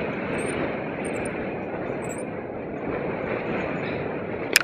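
Wind rushing over the camera microphone as the paraglider glides low and fast toward landing: a steady rough rumble and hiss. A single sharp click just before the end.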